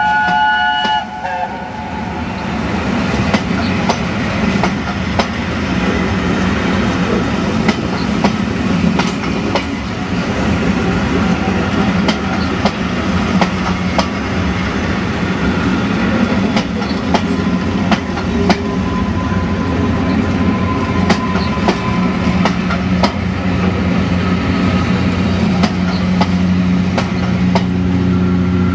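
Passenger coaches of a charter train rolling past, their wheels clicking and rumbling over the rail joints. A short whistle sounds at the start, and a steady low hum comes in near the end.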